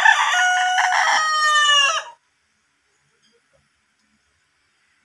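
A rooster crowing: one long call that falls in pitch as it ends, about two seconds in.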